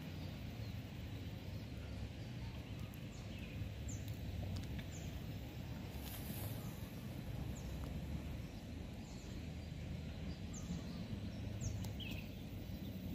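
Steady low outdoor rumble, with short, high, falling bird chirps about once a second.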